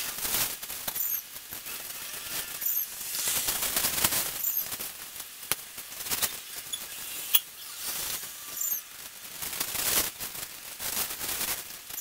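Rustling of plastic packaging and artificial pine branches as Christmas tree ornaments are handled and hung, with occasional light clicks.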